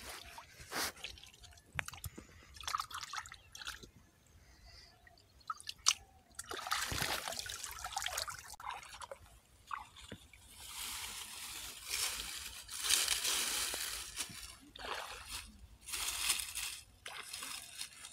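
Shallow muddy water splashing and dripping as hands work in it, and dry straw rustling and crackling in irregular bursts as a bundle of it is handled and laid down.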